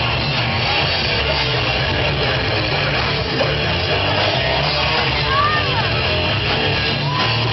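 A live rock band playing loud, with electric guitars, electric bass and a drum kit. A few short high gliding notes come about five seconds in.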